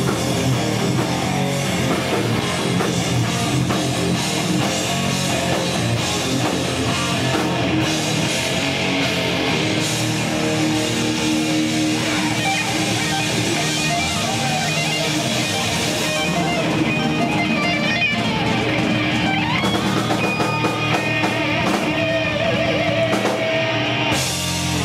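A live rock band playing, with electric guitar to the fore.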